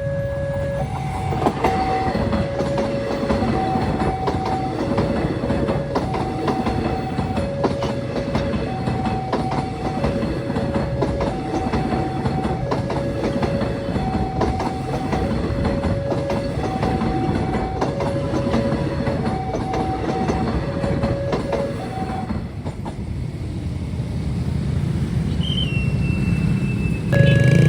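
Railway level-crossing warning alarm sounding its two-tone electronic chime, alternating a lower and a higher note about once a second, over the rumble and wheel clatter of a passing train. The alarm cuts off about five seconds before the end while the train noise carries on.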